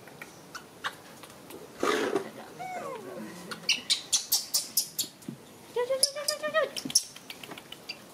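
Young animals giving short squeaks and a brief stepped whine about six seconds in, with scattered sharp clicks and taps in between.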